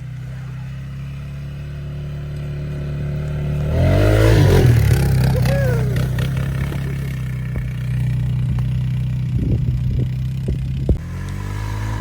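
A vehicle engine running steadily, revving up and growing louder about four seconds in. There are a few short knocks near the end, the last one sharp.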